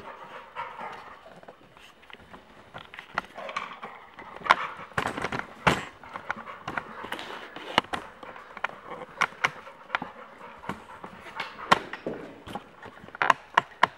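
Irregular clicks and knocks of a dog walking about, its claws and paws on the floor, with a few sharper knocks now and then.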